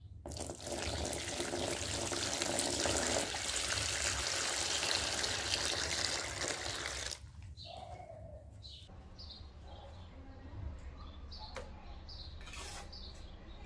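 Water running for about seven seconds, then stopping abruptly; small birds chirp afterwards.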